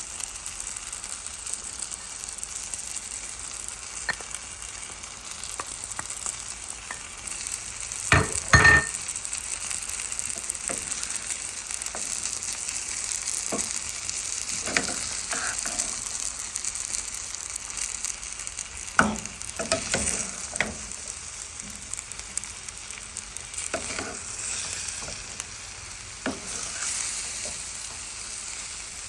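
Chicken, potatoes, peas and carrots sizzling steadily in a skillet, with a utensil knocking and scraping against the pan now and then as it is stirred; the loudest clatter comes about eight seconds in.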